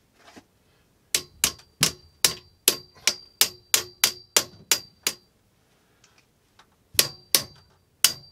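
Pump pliers clamped on the edge of a copper slip coupling, struck repeatedly with a metal tool to knock the coupling along the pipe. A run of about a dozen sharp metallic taps with a short ring, about two and a half a second, then a pause and three more taps near the end.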